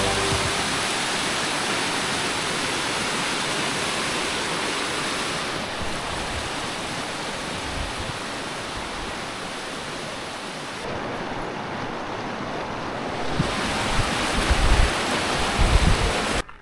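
Steady rushing of fast-flowing water, with low gusts of wind buffeting the microphone in the last few seconds before the sound cuts off abruptly.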